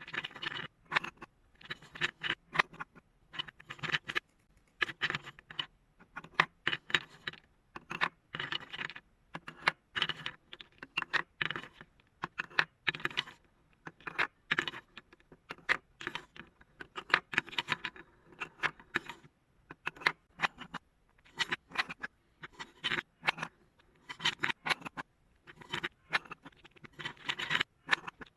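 Marbles rolling and clattering down a marble run: a dense, irregular stream of clicks and clacks as they strike the track and one another.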